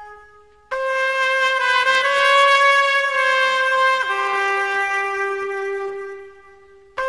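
Background music: a single wind instrument plays a slow phrase of long held notes. The phrase steps down to a lower note about four seconds in and fades out near the end.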